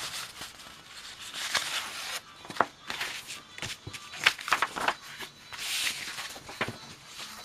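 Paper rustling as a folded paper leaflet is handled, folded and set down, in irregular bursts with a few sharp snaps of the paper.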